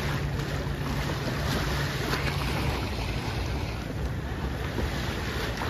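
Wind on the microphone over lapping lagoon water, a steady rushing noise. A low steady hum sits underneath and stops about halfway through.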